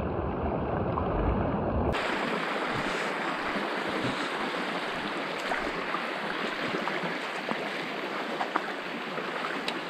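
Shallow creek water running over a pebbly riffle, a steady rush. About two seconds in, the sound switches abruptly from a muffled, dull rumble to a full, clear rush.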